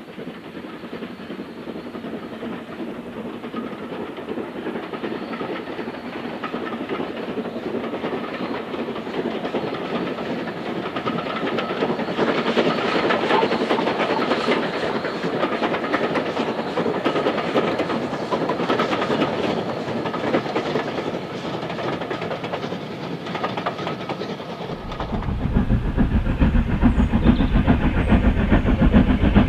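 A steam locomotive hauling a train of coaches, its exhaust and the clatter of wheels on the rails growing louder to a peak midway, then easing off. About 25 seconds in, a strong low rumble takes over suddenly.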